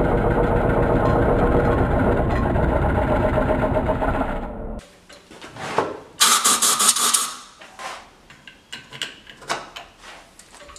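Wood lathe running with a drill bit in the tailstock chuck boring into the end of the spinning pine blank: a loud, steady drilling and machine noise that stops a little under five seconds in. After that, a short harsh noisy burst and scattered clicks and knocks.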